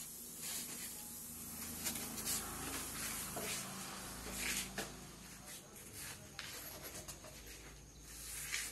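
Faint, scattered rustling and scraping in a small bare room, with a few sharper scrapes: the noise of someone handling a phone and shuffling about while filming.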